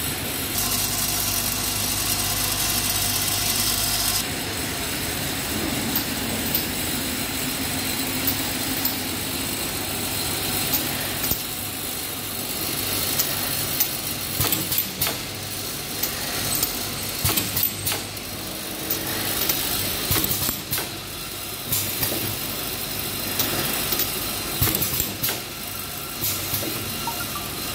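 Automatic dropper-bottle filling and capping machine running: a steady motor hum with frequent short clicks and knocks from the indexing star-wheel turntable and capping head, coming more often in the second half.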